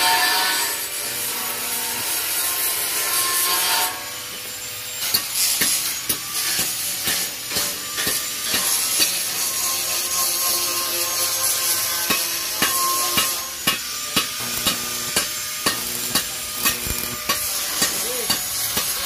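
Stick (arc) welder crackling and hissing as steel rods of a frame are welded at their joints, with many sharp ticks and taps. A run of evenly spaced taps comes in the last few seconds.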